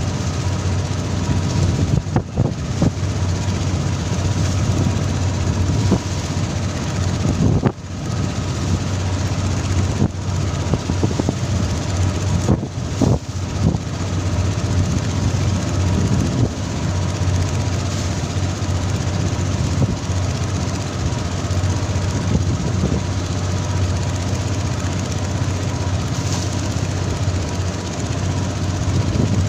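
Pole-and-line tuna boat's engine running steadily under way, a low drone with water rushing along the hull and spraying at the stern.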